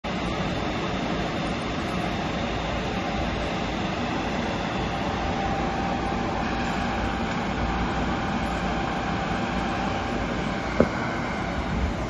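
Steady rushing hum of an aquarium exhibit hall, the kind made by tank pumps and ventilation. A faint thin tone sits in it from about three to ten seconds in, and there is one sharp click near the end.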